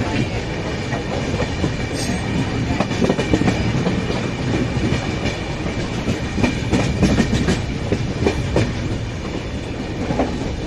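Passenger train rolling through the station, its wheels clattering steadily over rail joints with a continuous rumble.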